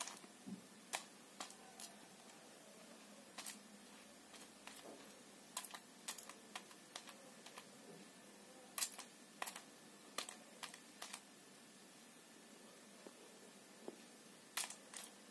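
Faint, irregular clicks and taps of beads knocking against each other and the tiled floor as a kitten paws at a beaded strand, with a few sharper clicks among them.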